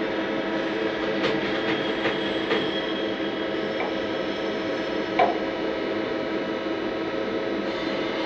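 CNC turning lathe running with a steady hum and whine, with several sharp metallic ticks from about a second in and a louder one about five seconds in as a hand tool touches the turning metal part.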